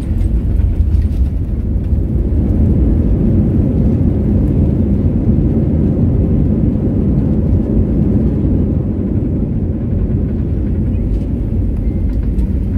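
Airliner cabin noise during the landing roll: a loud, steady low rumble of engines and wheels on the runway with a steady hum under it, swelling slightly and then easing as the plane slows.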